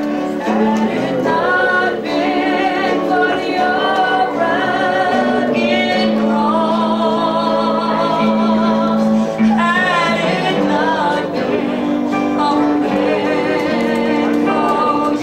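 A woman singing a gospel song into a microphone with a wavering vibrato, backed by guitar.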